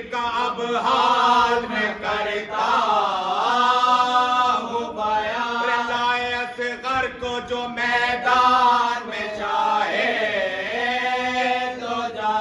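Men chanting a marsiya, a mourning elegy, unaccompanied: a lead voice through a microphone with several other men singing along, in long held, wavering notes.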